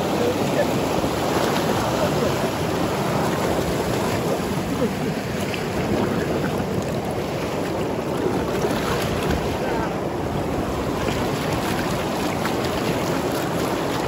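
River rapids: fast-flowing water rushing with a loud, steady sound.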